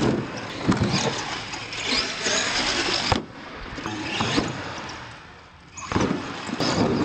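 R/C monster truck driving on a concrete floor: motor and drivetrain whine and tyre scrub swell and fade with the throttle. There are a few sharp knocks as it bangs over the ramps.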